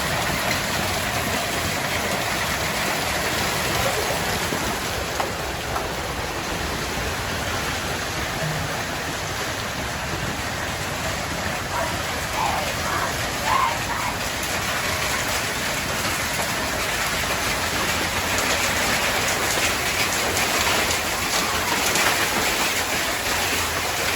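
Heavy rain falling steadily in a storm, a dense even downpour.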